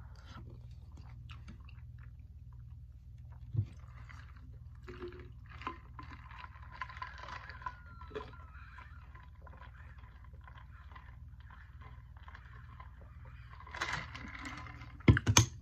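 Close-up eating and drinking sounds: chewing a mouthful of food, then drinking from a large drink bottle in long swallows. A couple of loud knocks near the end.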